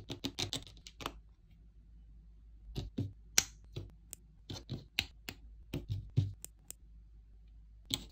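Small plastic snap-together figure parts being pressed and clicked together by hand, with parts tapped on the table: a quick run of sharp clicks, a pause of about two seconds, then a dozen or so clicks and taps, and one more near the end.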